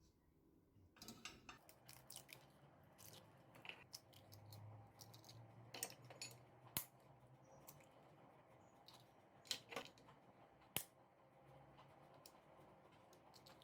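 Near silence broken by faint, scattered clicks and taps, a few of them sharper than the rest.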